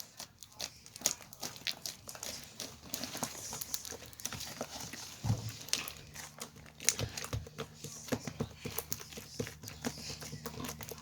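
Slime being squished and worked by hand, making many quick, irregular clicks and crackly pops.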